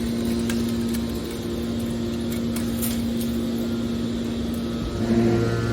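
Scrap metal baler press running: a steady mechanical hum with a few faint clicks, growing louder near the end.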